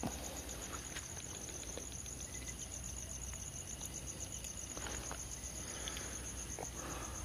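Night insects, crickets, chirping in a steady, high, fast-pulsing trill.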